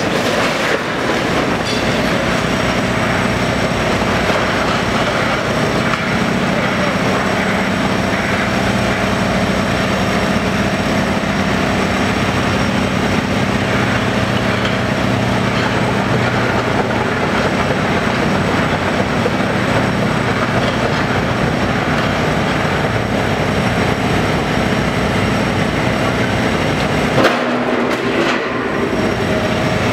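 Tracked demolition excavator's diesel engine running steadily under load while its hydraulic shear crunches and tears through concrete and steel, with metal clanking and scraping throughout. About 27 seconds in, the low engine sound drops away briefly after a sharp knock.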